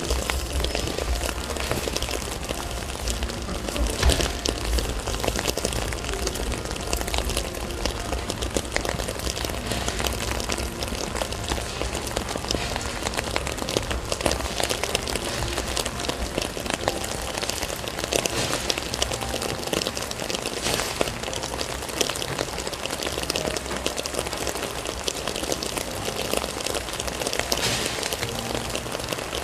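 Steady rain falling, with many separate drop hits close by.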